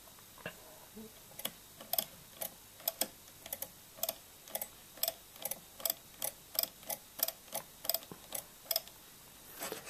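Keys of an Aderes column-adding machine pressed and released over and over, its mechanism clicking sharply about two to three times a second as the counter dials advance and carry into the next digit.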